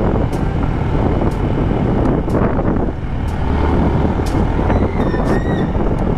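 Suzuki Gixxer motorcycle running while ridden through traffic, its engine and exhaust mixed with road and wind noise. A brief higher squeal comes about five seconds in.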